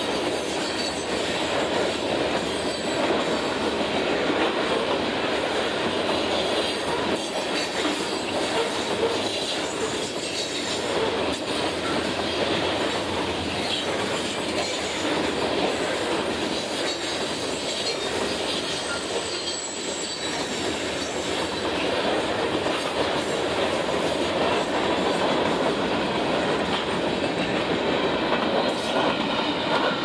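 Freight train cars (tank cars, covered hoppers and boxcars) rolling past close by: a steady, continuous noise of steel wheels running over the rails.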